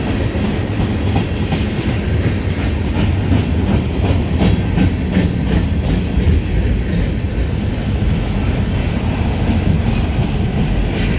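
Tank cars of a freight train rolling past: a steady rumble of wheels on rail, with repeated clicks as the wheels cross rail joints.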